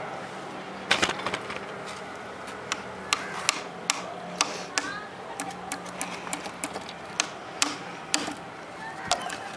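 Hammer tapping small nails into a plywood bird feeder, fixing the decorative trim along its edge: a run of light, irregular taps starting about a second in.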